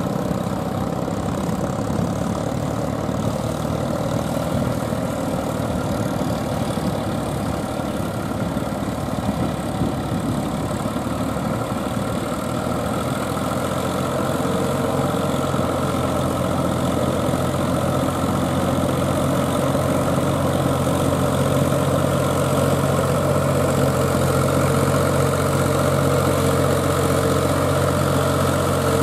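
Mahindra 475 DI tractor's four-cylinder diesel engine running steadily under load as it drags cage wheels and a leveling board through paddy mud. The engine note comes through louder and clearer about halfway through.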